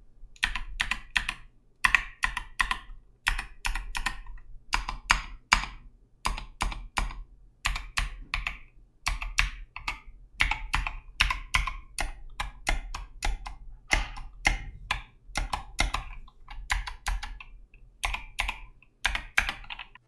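Typing on a custom keyboard with Zeal Clickiez clicky switches in a 3D-printed PLA case: quick, uneven runs of very loud, sharp key clicks. The hollow printed case acts a little like a loudspeaker.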